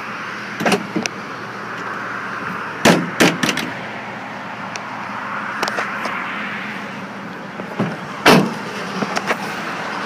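Pickup tailgate being handled: metal latch clicks and clunks in the first few seconds, and a louder clunk about eight seconds in, over a steady background noise.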